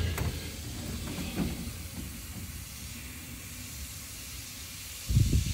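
Aerosol can of foaming oven cleaner spraying in a steady hiss. A brief low thump comes near the end.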